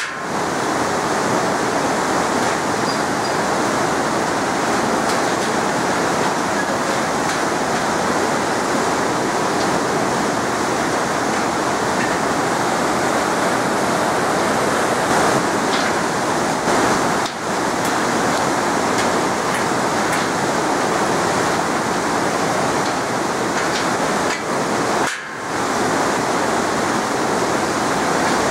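Mountain river rushing through white-water rapids over boulders: a loud, steady rush of water.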